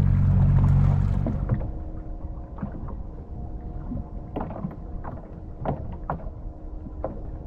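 Fishing boat's engine running loud and steady, then about a second and a half in it drops to a quieter steady hum, with scattered knocks through the rest.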